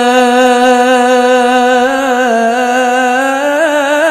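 Male qari's voice in melodic Qur'an recitation (tilawah), holding one long drawn-out vowel at a steady pitch, with a quick trill near the end as the pitch steps up slightly.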